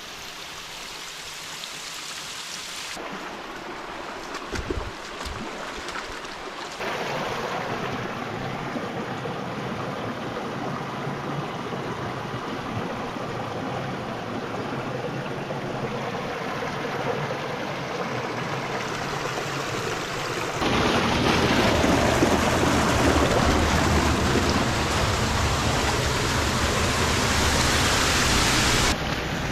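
Steady rush of flowing creek water and small cascades, heard in several short stretches that change level suddenly; it is loudest in the last third.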